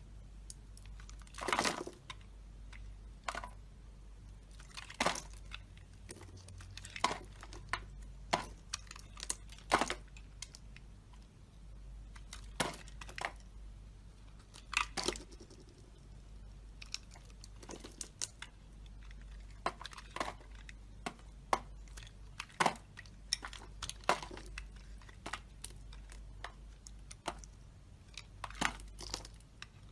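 A blade cutting and carving into dry soap: a string of short, sharp cuts at irregular intervals, about one every second or two.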